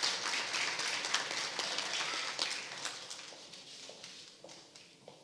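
Audience applauding, the clapping dying away after about three seconds.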